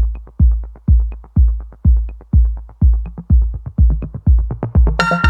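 Electronic dance music with a steady kick drum, about two beats a second. Near the end a bright synthesizer chord comes in.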